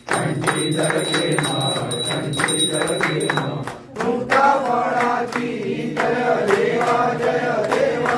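A group of voices chanting a devotional prayer together, over a steady beat of sharp strikes. The chanting dips briefly a little before halfway, then picks up again.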